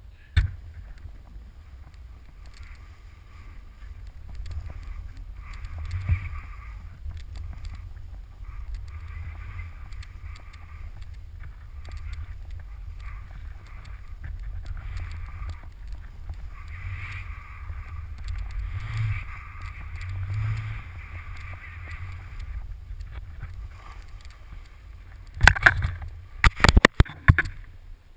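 Skis hissing through deep powder snow in swelling passes over a steady low wind rumble, heard on a GoPro's microphone. A cluster of loud knocks and crackles comes near the end.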